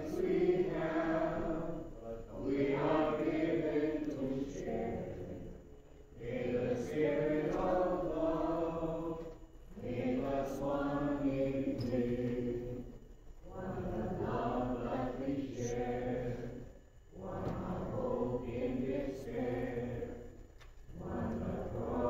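Congregation singing a slow chant-like hymn after Mass, in phrases of three to four seconds with short pauses for breath between them.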